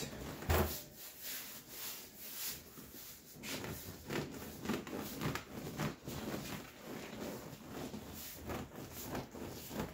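Vinyl seat cover being stretched and rubbed over the seat foam by hand: a run of irregular scuffs and rustles.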